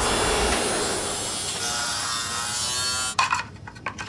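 Street traffic: a car passing close by, a steady rushing of tyres and engine that cuts off after about three seconds. Then a few short scraping, shaking sounds.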